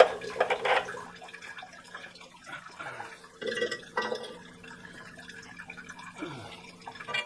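Water draining from an electric water heater, a faint trickling and dripping, with a few light clicks and knocks from handling tools and fittings.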